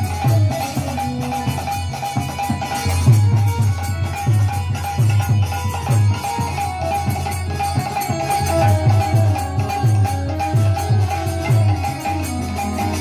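Instrumental Bengali folk music accompanying a Manasa gaan performance: a double-headed barrel drum beating a quick, steady rhythm under a held harmonium tone, with high jingling percussion.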